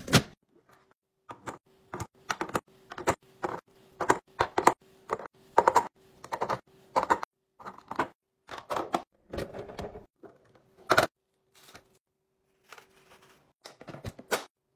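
Hard plastic storage bins and eggs clicking and knocking as they are set down one after another, about one or two light knocks a second, with eggs placed one by one into a clear plastic egg tray. A faint steady hum runs underneath.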